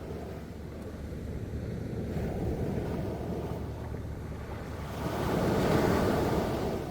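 Sea waves washing in, with wind buffeting the microphone. One wave swells louder about five seconds in and dies away near the end.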